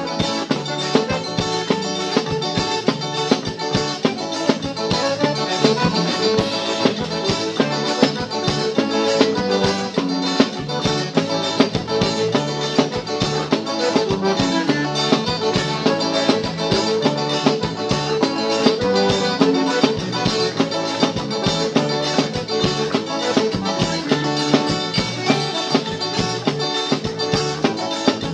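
Forró band music with plucked guitar and accordion over a steady drum beat, without singing.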